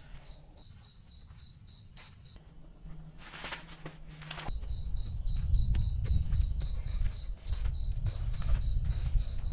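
An insect chirping steadily in a high, even rhythm, about four to five chirps a second. It breaks off for a couple of seconds and comes back. About four seconds in, a louder low rumble with scattered knocks sets in underneath it, like wind buffeting or handling noise on the microphone.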